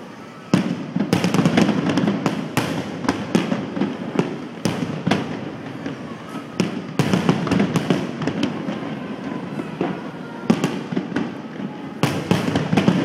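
Aerial fireworks display: shells bursting overhead in quick succession, a dense run of sharp bangs and cracks over a low rumble that starts about half a second in, eases off briefly near the end and then picks up again.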